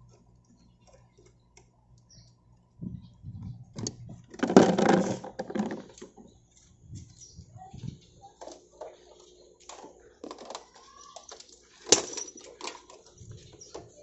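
Hands working on motorbikes: light clicks and rattles of a screwdriver, wires and plastic body parts, with a louder rustling burst about a third of the way through and one sharp click near the end.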